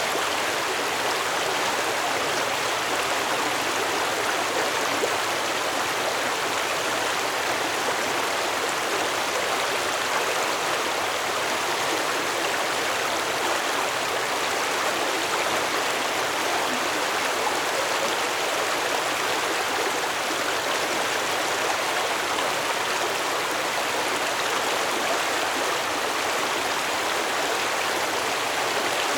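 Stream water flowing over stones: a steady, unbroken rush and babble.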